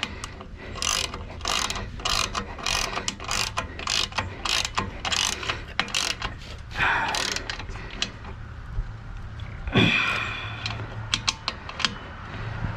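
Ratchet wrench clicking in quick back-and-forth strokes, about two to three a second, as exhaust mounting nuts are run down and tightened, with a couple of longer scraping sweeps later and a few more clicks near the end.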